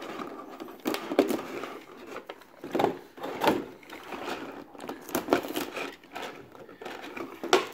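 Clear plastic blister packaging and plastic wrap being handled and turned over, crinkling with irregular sharp clicks and taps.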